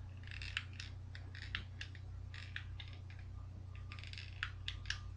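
Small plastic handheld light being handled, with irregular clicks and brief rustles as its button is pressed to switch it between white and red light.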